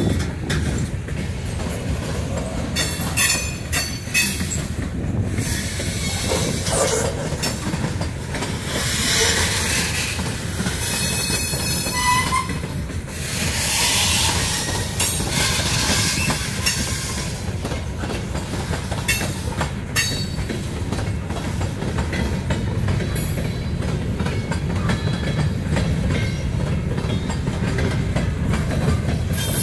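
Freight train of covered hoppers and tank cars rolling past close by: a steady low rumble of wheels on rail with clicking rail-joint clatter. Through the middle there are stretches of high-pitched wheel screeching.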